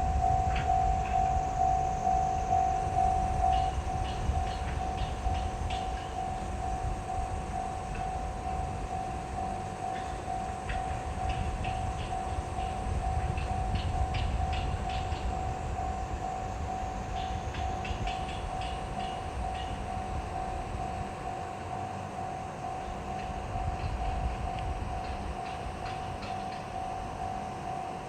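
Japanese level-crossing alarm ringing in a steady rapid pulse, louder for the first few seconds, over the low rumble of a diesel train passing over the crossing.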